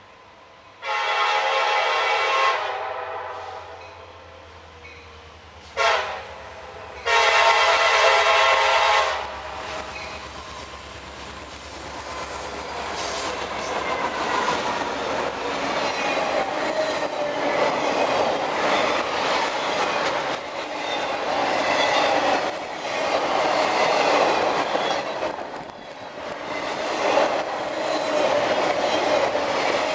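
Diesel locomotive air horn on a CSX intermodal train led by SD70MAC 4816, sounding three blasts, long, short, long, over the low drone of the approaching engines. Then the train passes close by, with the steady loud rush and clatter of wheels on rail.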